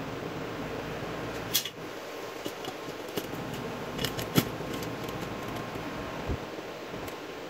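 Steady fan-like hum of a shop with a handful of short, sharp metal clicks and taps from hand tools on the engine block, as a ratchet and socket are worked on a nut welded onto a stripped bolt; the loudest click comes about one and a half seconds in.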